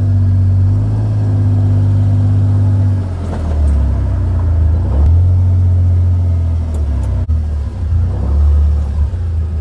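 Engine of a Kawasaki side-by-side utility vehicle running as it drives slowly past, towing a trailer. It makes a steady low drone that shifts in pitch about three seconds in.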